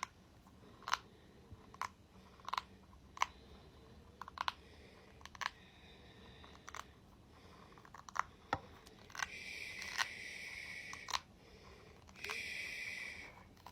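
A ball tapped and handled close to the microphone: sharp taps and clicks, about one a second, then two stretches of scratchy rubbing on its surface, each a second or two long, near the end.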